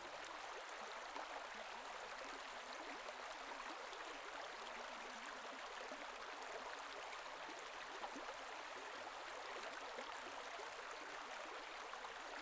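Faint, steady rush of flowing canal water.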